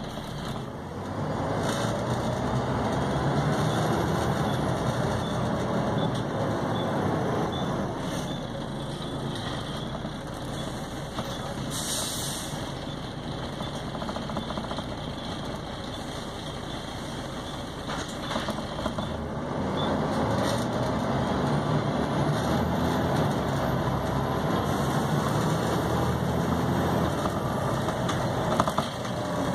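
Volvo B7TL double-decker bus's 7.3-litre diesel engine and ZF gearbox running on the move. It grows louder twice, about a second in and again about twenty seconds in, and eases off in between. A faint whine rises and falls with it.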